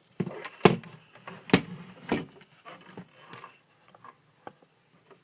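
A boxed toy being unpacked and handled: several sharp knocks and clicks in the first two seconds or so, then lighter, sparser handling noise.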